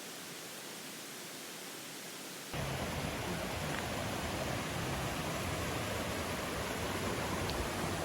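Steady rushing noise of a mountain stream. About two and a half seconds in it cuts abruptly to a louder, deeper rush.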